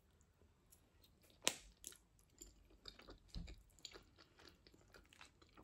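Faint chewing of a mouthful of tuna pasta salad: soft wet clicks and smacks, with one sharper click about a second and a half in.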